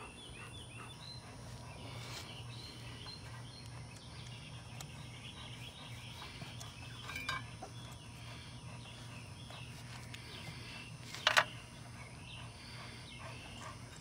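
Faint outdoor background of scattered bird chirps over a steady low hum, broken about eleven seconds in by a sharp double click as wire spade terminals are pushed onto a dual run capacitor's terminals.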